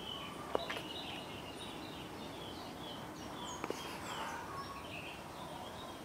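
Several sooty-headed bulbuls calling and singing in the trees: many short whistled notes, some falling in pitch, overlapping over a steady background hiss. Two sharp clicks sound, about half a second in and again about three and a half seconds in.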